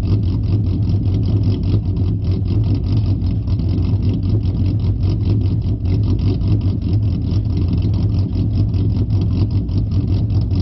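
Loud exhaust of a 2008 Ford Mustang's 4.0 L SOHC V6 running steadily, with a deep low drone and an even, rapid pulsing.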